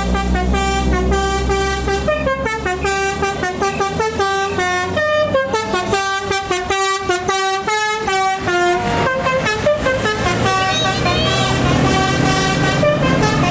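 A bus's telolet basuri multi-tone horn playing a quick melody of short stepping notes over the low running of the bus engine. The tune thins out about nine seconds in while the engine keeps running.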